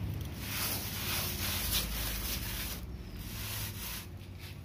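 Hand float rubbed back and forth over fresh cement plaster at a wall edge, a scraping swish with each stroke, as the plaster is smoothed. The strokes thin out after about three seconds.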